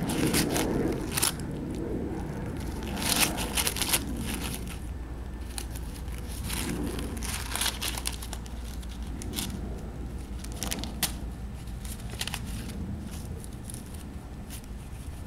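A Yorkshire terrier tearing and chewing a sheet of paper: irregular bursts of ripping and crinkling, loudest about three seconds in and thinning out toward the end.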